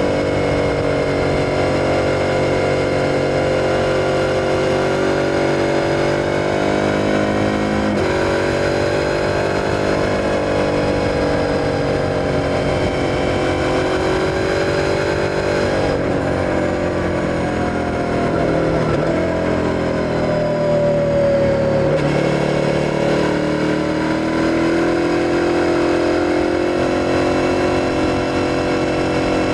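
Suzuki SV650's 645 cc V-twin engine running under way on the road, its pitch rising and falling with the throttle, with a few brief sharp dips in pitch.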